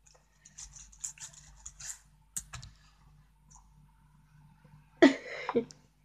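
Light clicks and taps on a computer keyboard for about two and a half seconds, then a short, louder burst of a girl's voice about five seconds in.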